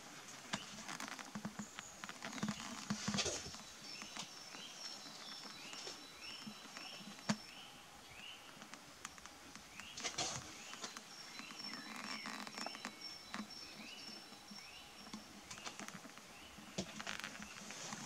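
Small birds singing repeated short rising chirps and quick high notes, with scattered footsteps and knocks on a wooden floor. One sharp knock comes about seven seconds in.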